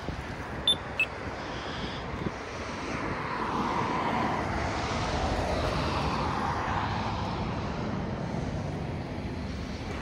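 Road traffic passing, with one vehicle swelling past in the middle and fading away. About a second in, two short, sharp, high chirps.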